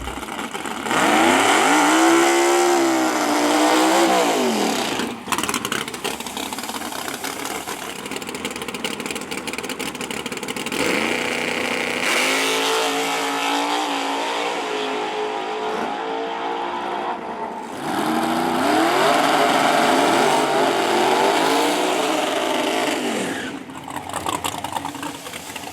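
Drag race car's engine being revved, its pitch climbing and falling in three separate spells, with the engine running more quietly between them.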